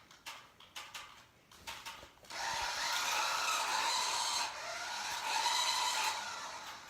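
A few sharp clicks, then the small electric motor of a remote control toy car whirring steadily for about four seconds before it stops.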